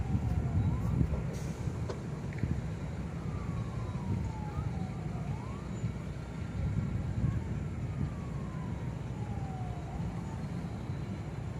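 Faint distant siren wailing, its pitch rising quickly and then falling slowly, repeating about every four to five seconds, over a steady low rumble.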